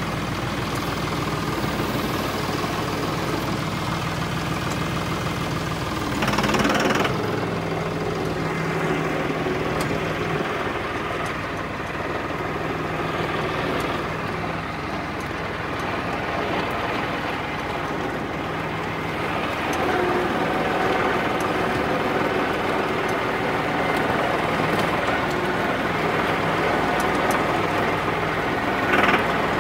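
Massey Ferguson tractor's diesel engine running steadily while the tractor is driven, its note shifting about seven seconds in and again around twenty seconds. A brief louder rush of noise comes about six and a half seconds in and again near the end.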